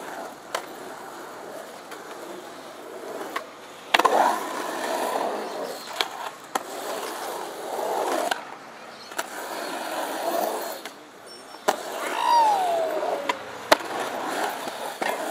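Skateboard wheels rolling and carving on a concrete bowl, the rolling noise swelling and fading with each run up and down the walls, broken by several sharp clacks of the board, the loudest about four seconds in. A short falling tone sounds near the end.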